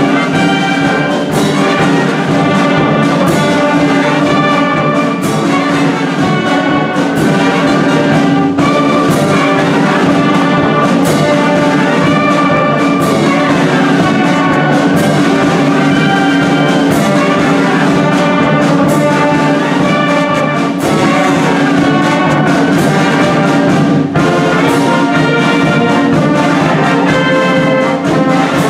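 Marching band playing a tune: brass and saxophones hold the melody over a steady beat of snare and bass drum hits.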